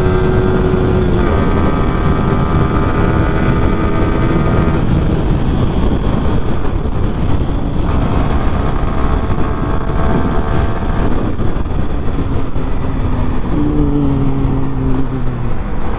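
Yamaha R15 V3's single-cylinder engine running at highway speed, its note easing lower as the bike slows. Heavy wind rush on the microphone lies under it throughout.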